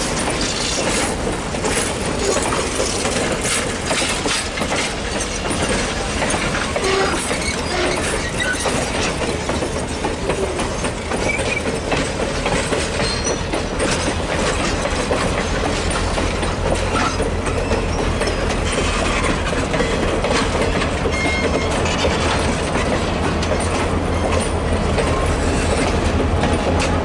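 Passenger coaches rolling past, their wheels clicking over the rail joints in a steady clickety-clack. In the second half a low, steady diesel engine rumble builds as the train's EMD diesel locomotives draw near.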